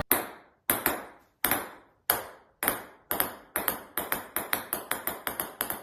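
Ping pong ball bouncing on a hard surface: sharp, light clicks that come faster and closer together, ending at about five a second.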